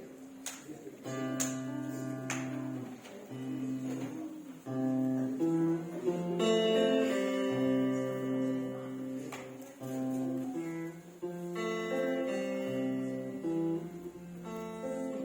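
Acoustic guitar playing an instrumental passage: picked notes and chords that ring for about half a second to a second each, with a few strummed attacks.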